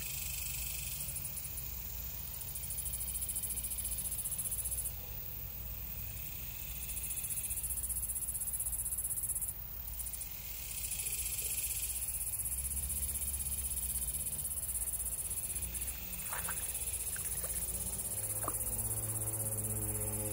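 A high-pitched, rapidly pulsing insect chorus that drops out briefly twice and starts again. A few light clicks come near the end.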